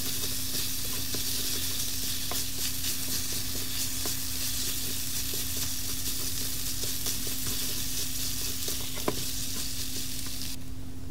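Ground pork with diced carrot and jicama sizzling steadily in a hot frying pan on high heat, stirred with wooden chopsticks that give small light taps and scrapes against the pan.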